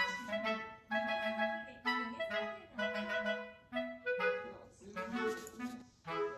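Background music: a clarinet-led melody in short, separate notes with a bouncy rhythm.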